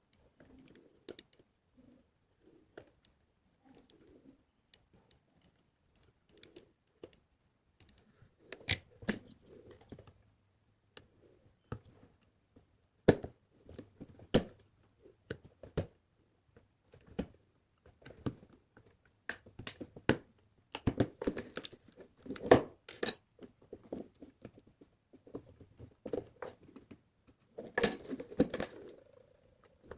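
Scattered clicks, taps and knocks with brief rustling, as small electronic parts and wires are handled and fitted into a project enclosure; sparse at first, busier from about nine seconds in.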